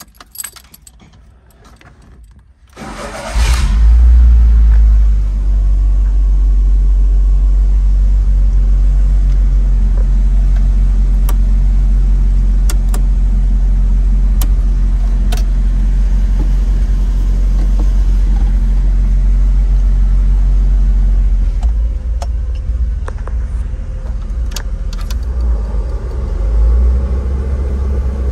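A 1990 Chevrolet S10's four-cylinder engine being started with the key: a few clicks, then it cranks and catches about three seconds in, flares briefly and settles into a steady low idle. Near the end the engine note becomes uneven.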